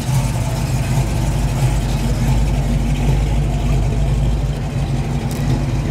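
A 1955 Chevrolet's engine and exhaust running steadily as the car drives slowly past at low speed, with a low, even exhaust note.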